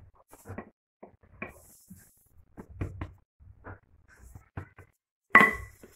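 Hands patting and pressing soft pastry dough on a floured wooden cutting board, a string of soft taps and dull thumps, with one louder knock about five seconds in that rings briefly.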